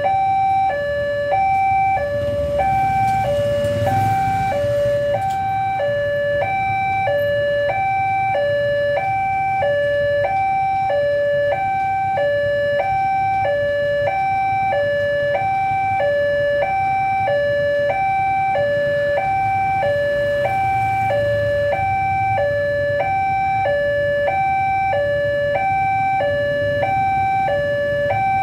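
Railway level-crossing warning alarm sounding a steady electronic two-tone ding-dong, high and low notes alternating with a pair a little under every second. This is the signal that the crossing is closed for an oncoming train. Beneath it is the low rumble of waiting and passing motorbikes and cars, swelling briefly twice.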